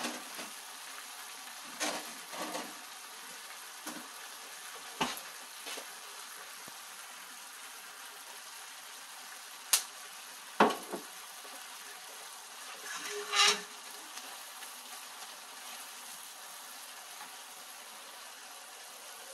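Chicken breast and mung bean sprouts sizzling in a stainless steel frying pan, a steady hiss, with a few knocks and scrapes of a metal spatula against the pan. The loudest knocks come about ten seconds in, followed by one longer scrape a few seconds later.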